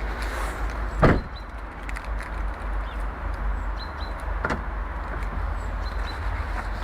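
Honda Civic's 1.5-litre D15B VTEC four-cylinder engine running with a steady low hum, with a sharp thump about a second in and a softer one past the middle.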